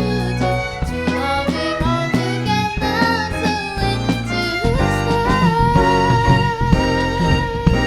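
Small jazz ensemble of violins, piano, bass and drums playing a jazz waltz, with a moving melody line that settles into one long held note with a slight vibrato about five seconds in.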